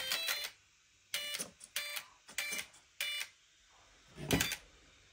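Spektrum Firma 130A Smart brushless ESC powering up, its start-up tones sounded through the motor: a run of short beeps about 0.6 s apart as the ESC initialises and arms. About four seconds in comes a brief buzz.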